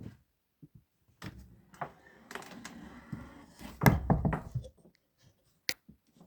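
A series of knocks and thuds with some rustling, loudest in a cluster about four seconds in, followed by a single sharp click.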